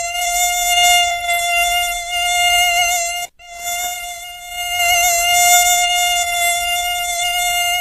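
Mosquito whine close to the microphone: a steady high-pitched buzz with many overtones that swells and eases slightly and drops out for an instant a little over three seconds in.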